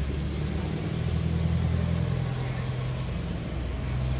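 An engine running steadily at idle: a constant low hum that swells slightly partway through.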